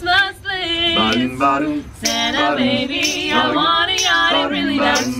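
A small mixed group of carolers, women and men, singing a cappella in harmony, with a finger snap about once a second keeping the beat.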